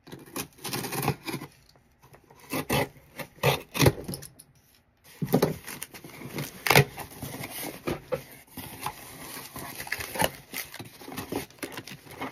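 A mailed package being opened by hand: irregular scraping and rustling of cardboard and packing material, with a few sharp clicks and snaps.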